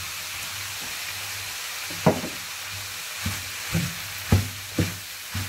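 Frying pan sizzling as rice goes in on top of chicken and vegetables. From about two seconds in, a wooden spatula stirs the rice and knocks against the pan about six times.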